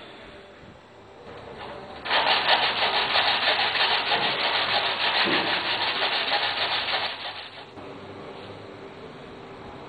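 A tungsten carbide abrasive disc in a benchtop vacuum-form trimmer rasps loudly against the edge of a plastic vacuum forming as it is trimmed straight. The grinding starts about two seconds in and stops about two seconds before the end. Either side of it, the machine runs more quietly with no work against the disc.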